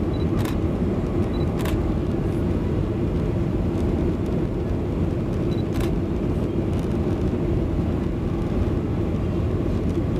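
Cabin noise of a Boeing 737-800 climbing out just after take-off: the steady roar of the jet engines and airflow with a low hum underneath. Three faint clicks come through, about half a second, just under two seconds and about six seconds in.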